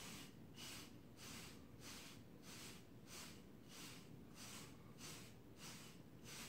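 Bristle wave brush swishing through short, waved hair in quick, even strokes, about three a second, faint.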